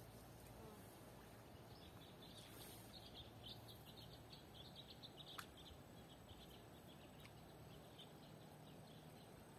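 Near silence, with faint, quick high-pitched animal chirps repeating several times a second from about two seconds in, and a single faint click about halfway through.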